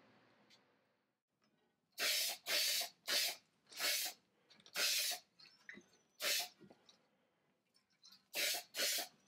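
Aerosol spray paint can hissing in short bursts, about eight quick sprays of a few tenths of a second each, with short pauses between them.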